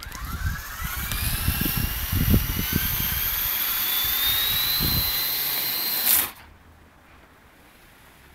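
Electric motor and rotor blades of a Walkera 22E micro RC helicopter spinning up with a rising whine, then running as a steady high whine for a few seconds. About six seconds in there is a short louder burst and the whine cuts off suddenly.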